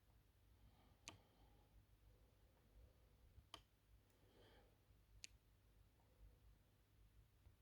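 Near silence: room tone with three faint sharp clicks a couple of seconds apart and a brief faint rustle between the second and third.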